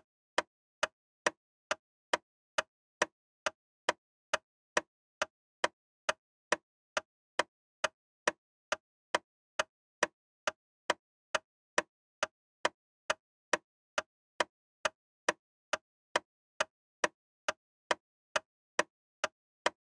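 Steady ticking, about two ticks a second, with dead silence between the ticks: a ticking sound effect laid in place of the live sound.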